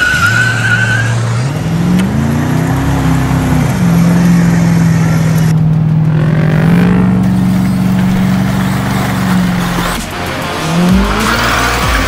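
Revving engine sound effect: the pitch climbs about a second in, holds steady for several seconds, drops away about ten seconds in, then climbs again near the end. A short high squeal opens it.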